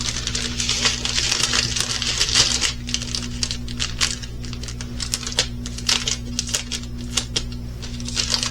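Small plastic bags of diamond-painting drills being handled, crinkling, with many quick ticks of the drills.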